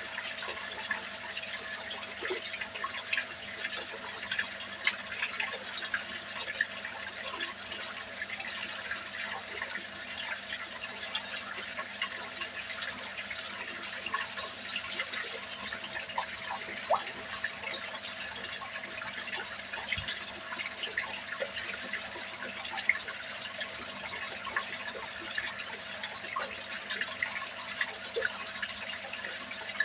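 Water pouring from a pipe into a small tarpaulin fish pond, splashing steadily onto a churning surface crowded with tilapia, with a faint steady hum underneath.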